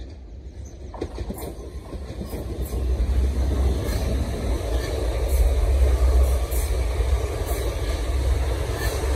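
A South Western Railway electric multiple unit passing close by on the adjacent track. Its rumble swells over the first few seconds and then holds steady and loud. Scattered sharp clicks come from the wheels running over the track.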